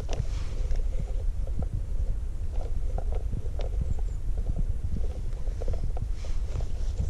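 Wind rumbling on the microphone, with scattered light knocks and rustles.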